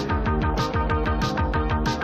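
Instrumental advertising-jingle music with a fast, steady beat.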